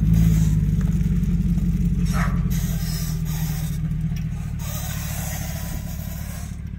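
Engine of a plow-fitted SUV running on tire chains, driving slowly past with a steady low hum that fades gradually as it pulls away.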